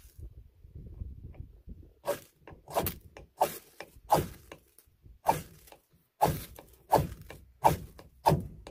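Steel striker scraped hard down a ferrocerium (ferro) rod to throw sparks into tinder: about ten rasping strokes, roughly one every two-thirds of a second, starting about two seconds in. Before that there is a low rumble of wind on the microphone.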